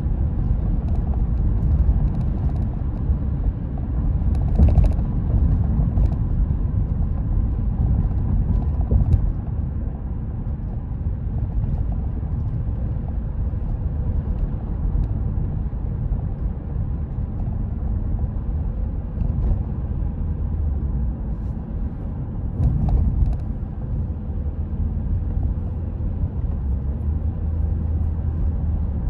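A car driving along a road: steady low road and engine rumble, with a few brief knocks, the clearest a few seconds in and another toward the end.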